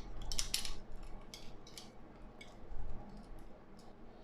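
Light metallic clicks and ticks of bicycle spokes being handled in the hub and rim during wheel lacing: a quick cluster of clinks in the first second, then a few scattered single ticks.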